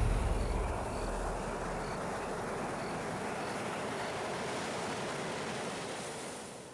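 Steady rushing noise, fading out near the end, with faint short high pips now and then in the first few seconds.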